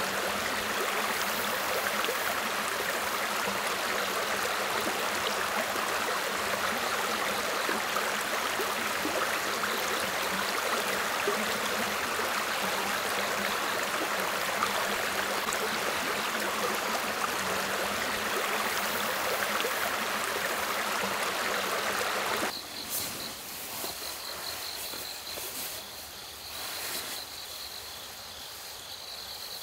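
Steady rushing of a stream flowing over stones. About three quarters of the way through it cuts off suddenly, leaving quieter night insects, crickets chirring steadily at a high pitch.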